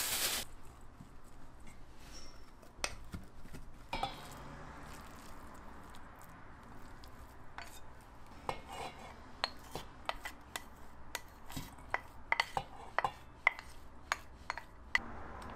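Wooden spatula knocking and scraping in a stainless-steel mixing bowl while rice and ground meat are mixed, with scattered sharp clicks that grow more frequent and louder in the second half.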